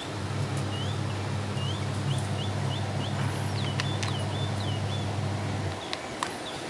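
Small birds chirping repeatedly in short rising and falling notes, over a steady low hum that stops about six seconds in. A few sharp clicks of a plastic fan switch housing being handled and pressed shut.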